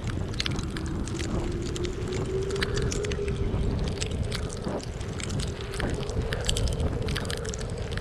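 Wind blowing hard, with a moaning howl on one tone that wavers slowly in pitch, over a low rumble of wind buffeting the microphone. Many faint irregular ticks run throughout.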